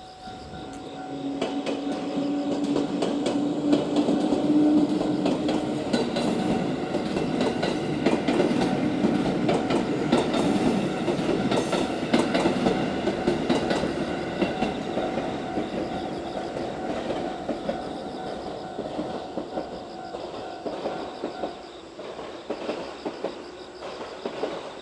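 A six-car 221 series electric train passing a level crossing, its wheels clattering over the rail joints. The noise builds about a second in and slowly fades over the last ten seconds. A steady warning tone from the crossing's alarm rings until near the end, then stops.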